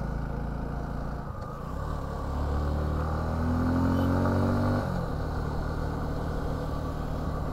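Suzuki V-Strom 250 parallel-twin engine running under way, its revs rising for about three seconds and then dropping suddenly about five seconds in before settling steady.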